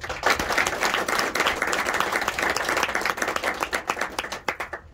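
A small audience clapping in applause, the claps thinning out and stopping shortly before the end.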